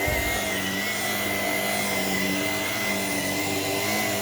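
Shark PowerDetect IP1251 vacuum cleaner running steadily while vacuuming, a constant high whine over the motor hum.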